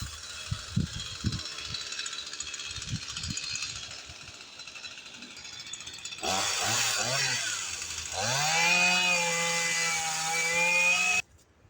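Two-stroke chainsaw running, with scattered knocks over a hissy sound at first. About six seconds in it revs up and down, then holds a steady high engine note for about three seconds before cutting off abruptly near the end.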